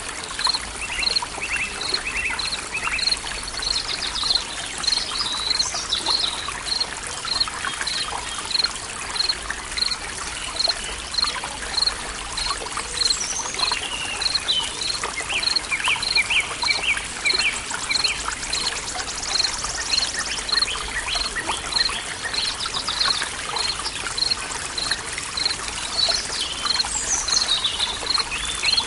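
Forest soundscape: water trickling steadily, with several birds singing over it and one short high note repeating evenly about one and a half times a second.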